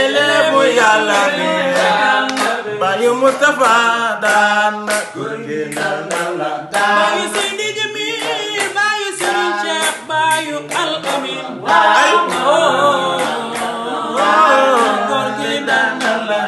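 Men singing a cappella, several voices together, with frequent sharp percussive hits.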